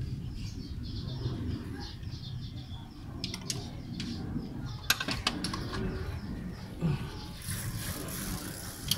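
Small birds chirping repeatedly in the background, over a steady low rumble. A few sharp metallic clicks and taps from hand tools working at the engine's fuel pump come about three seconds in and again about five seconds in.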